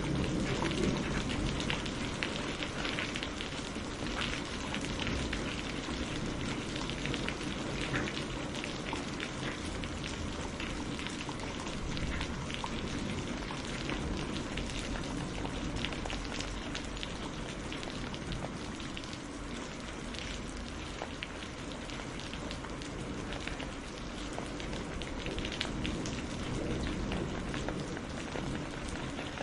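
Steady rain falling on a surface, a dense patter of individual drops over an even hiss.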